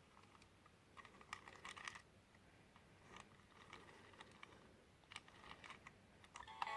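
Faint, light plastic clicking and rattling in a few short clusters, from a VTech toy bulldozer being handled.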